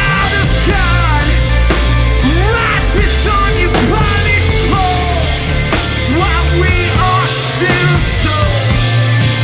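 A punk rock band playing live at steady full volume, with a dense mix of low bass, regular sharp drum hits and pitch-bending lines above.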